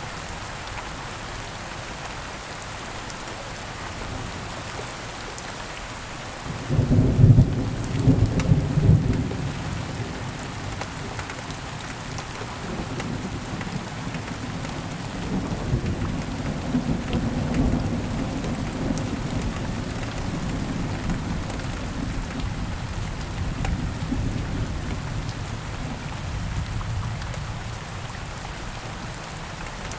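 Steady rain with a thunderclap about seven seconds in, loudest over the next two seconds, then a long rolling rumble of thunder that dies away near the end.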